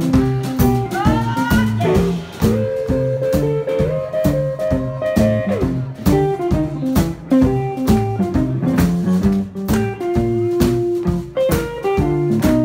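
Live acoustic blues: a guitar picking a steady rhythm over a regular beat, while a harmonica plays long, bending held notes.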